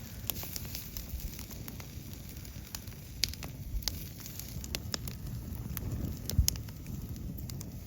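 Wood fire crackling in a fire pit brazier, with irregular sharp pops over a low steady rumble of the burning logs, and one louder low thump near the end.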